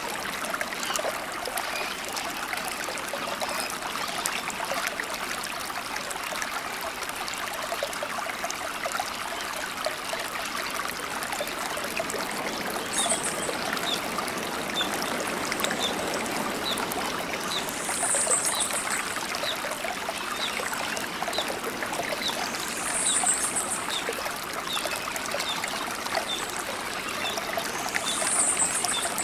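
Shallow rocky mountain river flowing and trickling over stones, a steady rush of water. In the second half a brief high chirp comes four times, about every five seconds, over faint quick ticking about twice a second.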